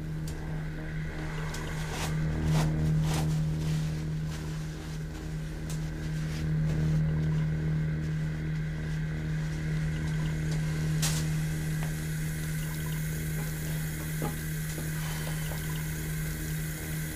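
Water running from a tap into a sink over a steady low hum, with scattered light clicks. About eleven seconds in, a sharp click comes and the hiss of water grows fuller and brighter.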